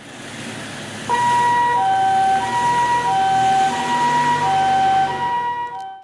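Japanese ambulance's two-tone 'pee-poh' siren, alternating a high and a lower tone about every two-thirds of a second. It starts about a second in, after a short stretch of vehicle noise.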